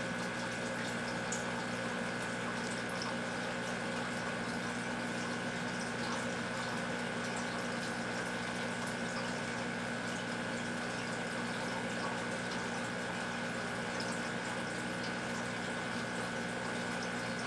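Aquarium filter running steadily: a constant hum over the even trickle and bubble of moving water.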